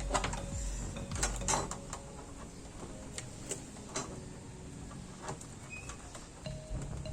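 Scattered clicks and knocks of parts and tools being handled while an LED TV is taken apart, a cluster of them in the first two seconds and single ones after.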